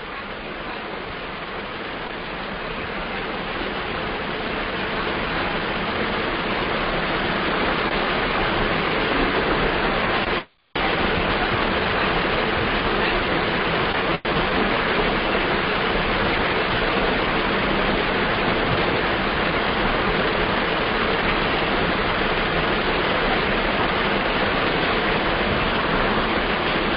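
Steady, loud rushing hiss that grows louder over the first several seconds and cuts out for a moment about ten seconds in.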